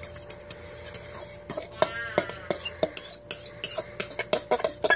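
A spoon stirring thick homemade barbecue sauce in a bowl, clinking and scraping against the sides in quick, irregular strokes, with a brief squeak about two seconds in.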